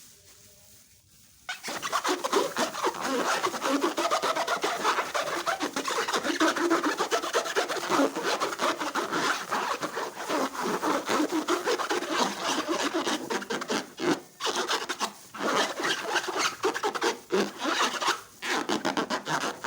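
Slime being worked and stirred by hand, a dense, crackly rubbing noise that starts about a second and a half in and pauses briefly a few times near the end.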